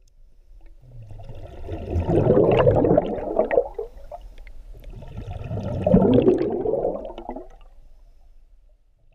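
Water sound effect, a bubbling wash of water that swells and fades twice, loudest about two and a half and six seconds in, then dies away.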